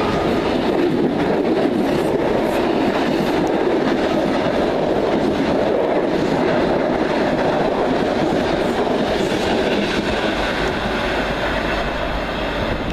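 Greater Anglia passenger coaches of a Class 90-hauled express passing at speed through a station, a steady rush of wheel and rail noise that eases off near the end as the train draws away.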